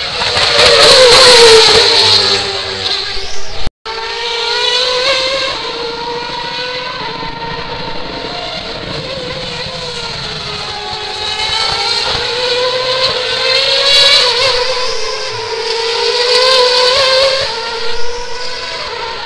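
Formula One race car engine passing close at high speed, its high-pitched note falling as it goes by. After a brief dropout about four seconds in, race engines are heard further off, their pitch slowly rising and falling as the cars lap the circuit.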